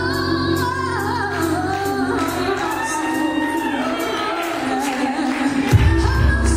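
A woman sings a gospel song solo into a microphone over musical accompaniment, gliding through long held notes. The deep bass of the accompaniment drops away in the middle and comes back strongly near the end.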